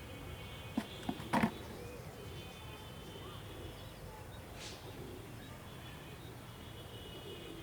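Three short knocks or clicks in quick succession about a second in, over quiet outdoor background with faint high-pitched chirping.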